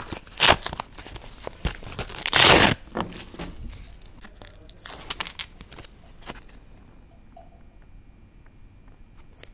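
Clear plastic packaging being handled and torn open, with a loud half-second rip about two and a half seconds in and a shorter one just before it. Light rustles and taps follow, then it goes much quieter for the last few seconds.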